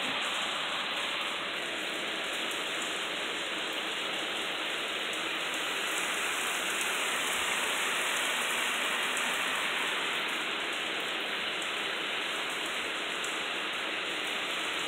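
Loud, heavy rain pouring steadily, an even, unbroken wash of drops.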